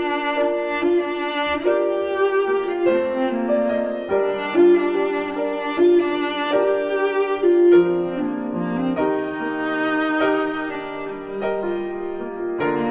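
Background music: bowed strings, violin and cello, playing a melody of held notes with piano.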